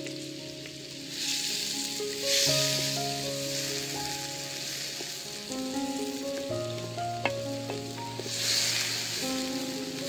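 Diced tomatoes sizzling in a steel pan over a wood fire as they are stirred with a wooden spoon. The sizzle swells about a second in and again near the end. Background music with long held notes plays underneath.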